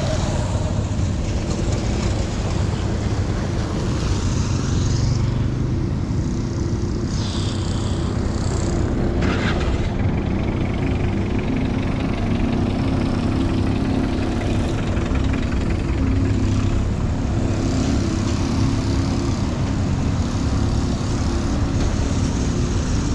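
Motor vehicle engine running steadily under road noise, a continuous low hum with a few brief higher hissing sounds about four and seven seconds in.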